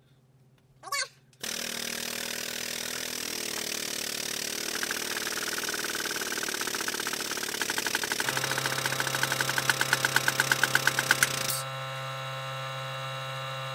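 A 20-ton air-over-hydraulic shop press, its air-driven pump running as the ram presses a new wheel hub into its bearing. A rapid pulsing builds and grows louder as the press strains against the tight fit. Near the end the pulsing stops, leaving a steadier hum.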